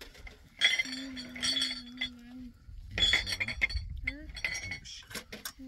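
Light clinks and rattles of metal and glass dishes and utensils. A long, steady, held call sounds about a second in, and short rising calls come near the end.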